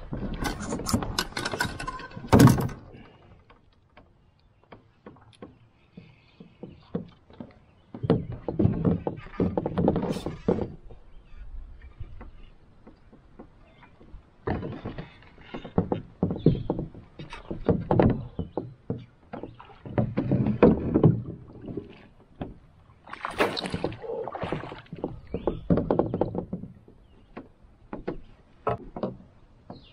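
Knocking, bumping and water sounds in and around a canoe, coming in irregular bursts of a few seconds with quiet gaps, as a big largemouth bass is fought and landed.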